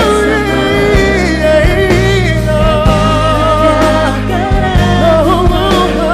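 Live pop ballad played by a band, with a singing voice carrying melodic lines over steady low accompaniment and no clear words.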